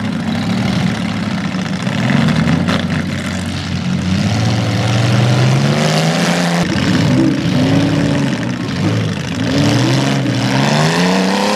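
Several demolition derby cars' engines revving hard at once, their pitches rising and falling as the cars push against each other; one engine climbs steeply near the end.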